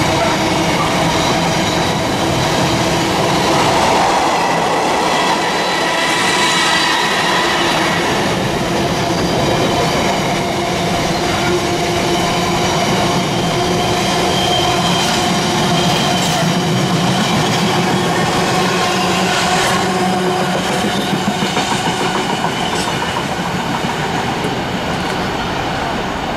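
A long freight train rolling past at speed, its wagon wheels clacking over rail joints, with a steady high squeal from the wheels on the rails. The sound holds even, easing slightly near the end as the last wagons pass.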